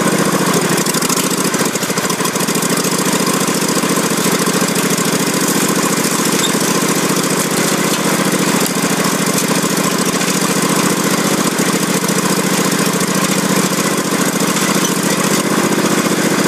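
Lawn tractor engine, souped up to reach 35 mph, running loud and steady as the tractor drives. It briefly dips in engine speed a second or two in, then holds steady.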